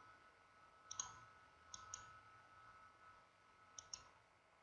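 Faint computer mouse clicks: one about a second in, then two quick pairs, over quiet room tone.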